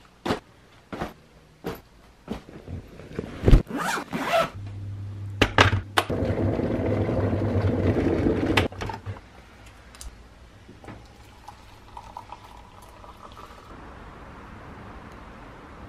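A hard-shell suitcase being packed and zipped shut: handling clicks, then scraping zipper pulls. An electric kettle then heats water with a steady hum and hiss that stops suddenly about nine seconds in, followed by a few light clicks.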